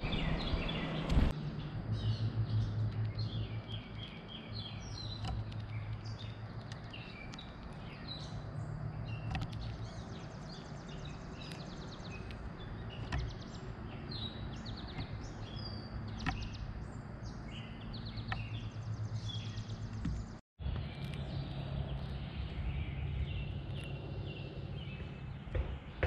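Songbirds chirping and trilling, with now and then a sharp tap as a bird pecks seed on the wooden feeder board right by the microphone, over a low steady hum.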